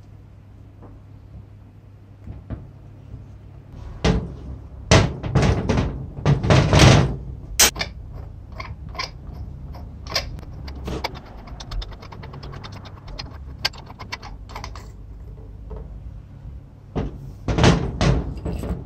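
Rusty steel parts of an antique electric chisel being handled and taken apart on a workbench. There are a few heavy knocks and clunks, then a long run of small quick clicks and scrapes as the threaded front sleeve is unscrewed, and more clunks near the end.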